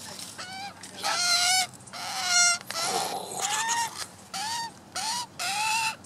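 Young Australian magpie calling over and over: about eight short squawks, each rising and then falling in pitch, roughly one every half second.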